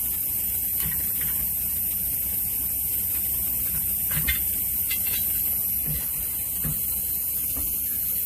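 A steady low hum under a constant high hiss, with a few faint clicks.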